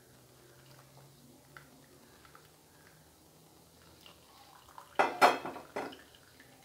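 Metal kitchen utensils clinking against a cooking pot: a few seconds of faint small clicks, then a short cluster of loud clinks about five seconds in.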